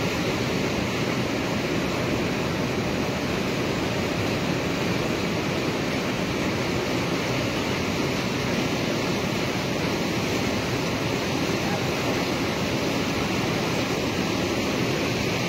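Steady rushing of a mountain stream in flood, an even noise with no breaks.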